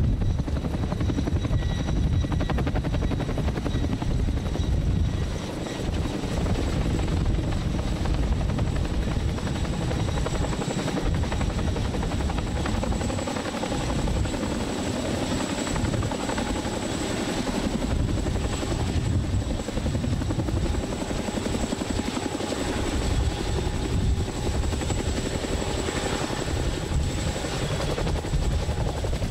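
CH-47 Chinook tandem-rotor helicopter with GE T408 turboshaft engines flying and hovering low. Loud steady rotor and engine noise with a thin high whine on top.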